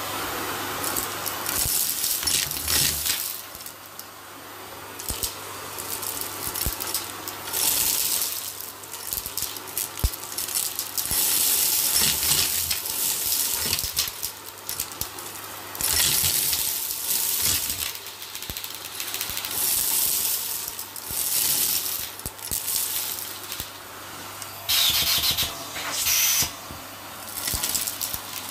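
Vacuum cleaner hose sucking up a pile of beads, confetti and grit off carpet, in repeated passes: crunching, rattling debris rushing up the hose over the steady running of the vacuum motor.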